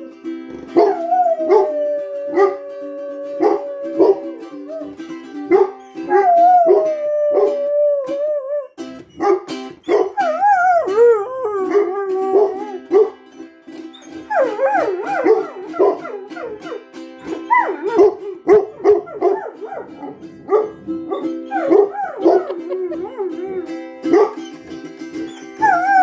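A dog howling along to music: long held and sliding howled notes, shorter and more wavering in the second half, over an instrumental accompaniment with a steady rhythm.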